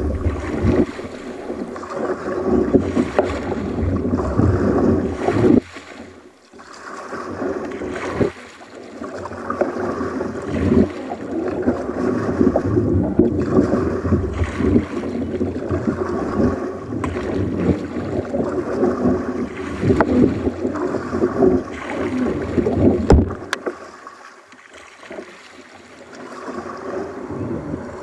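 Water sloshing and splashing against a sea kayak's hull as it is paddled, in irregular surges with a few short lulls, and wind buffeting the microphone.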